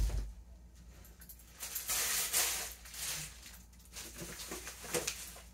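Plastic packaging wrapped around a bundle crinkling and rustling as it is handled, loudest a couple of seconds in, with a dull knock at the start and a few light knocks.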